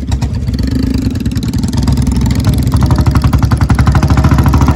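Single-cylinder Royal Enfield Bullet motorcycle engine running under way with a rapid, even exhaust beat. The beat grows louder about two seconds in as the bike picks up speed.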